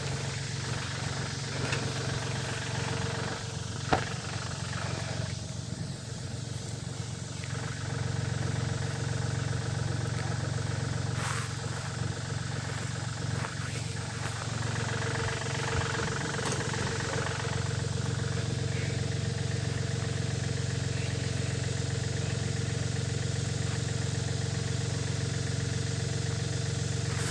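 An engine running steadily at an even, idle-like pace, with one sharp click about four seconds in.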